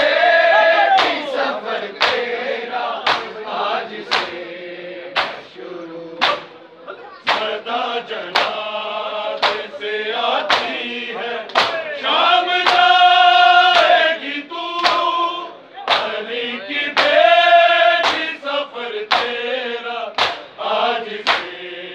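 Men reciting a Shia noha, sung in chorus by the mourners with long held lines, over a steady beat of hand slaps on chests (matam), about one every two-thirds of a second.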